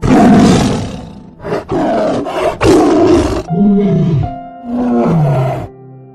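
A large animal gives a series of loud, rasping roars and growls, with a shorter, softer moaning call in the middle, over soft background music.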